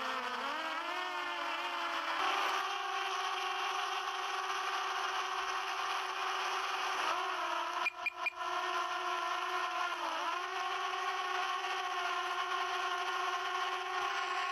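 Quadcopter drone's motors and propellers whirring as one steady pitched whine, dipping in pitch at the start and again about ten seconds in as motor speed changes. The sound cuts out briefly three times just past the middle.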